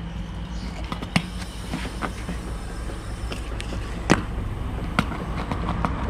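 Refrigerator compressor humming steadily while refrigerant is being charged into the system, the low-side gauge reading about 15. A few sharp clicks are heard over it, the loudest about a second in, about four seconds in and about five seconds in.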